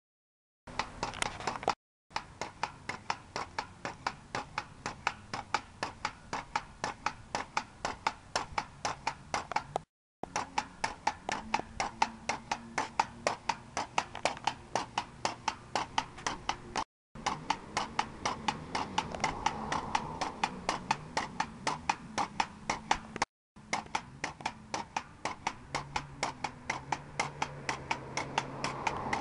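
Pogo stick bouncing on asphalt: a steady rhythm of sharp knocks from the spring and the rubber tip striking the pavement, about two to three bounces a second, broken four times by a brief silence.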